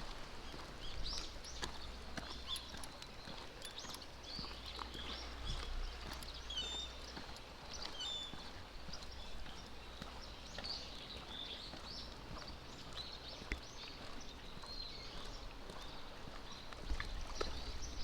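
Footsteps of a person and a dog walking along a path, irregular taps, with scattered high chirps of small birds and a low wind rumble.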